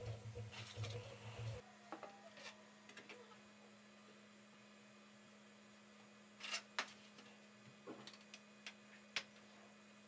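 Faint clicks and taps of 3D-printed plastic wing parts and a glue bottle being handled, the loudest a quick pair a little past halfway and another near the end, over a steady low hum. A low rumble stops abruptly a second or two in.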